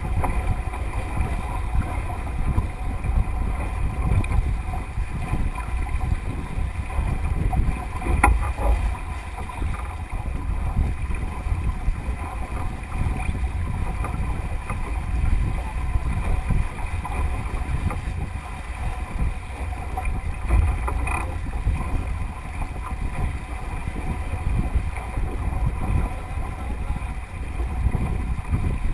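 Wind buffeting the microphone over the steady rush and splash of water along the hull of a Melges 24 sailing boat driving upwind, with one sharp knock about eight seconds in.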